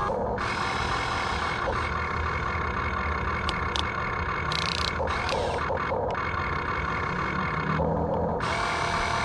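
Simulated engine sound effect from a toy Huina RC excavator's speaker, a steady looped drone that shifts in character a few times, mixed with the whine of the model's small electric motors.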